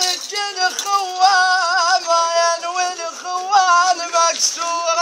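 A man chanting a hosa verse alone in a loud, high voice, holding each note for about half a second with a waver before moving to the next.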